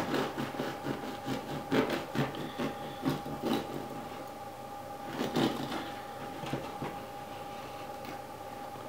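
Bread knife sawing through the firm crust of a freshly baked seeded grain loaf on a wooden cutting board, a rhythmic rasp at about two or three strokes a second that stops about three and a half seconds in. A single knock follows about five seconds in.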